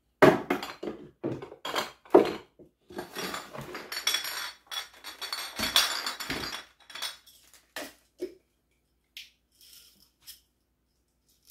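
Glass spice jars and their lids knocking and clinking as they are handled on the counter, with a denser stretch of jostling rattle in the middle as a plastic basket full of jars is moved, then a few light clicks near the end.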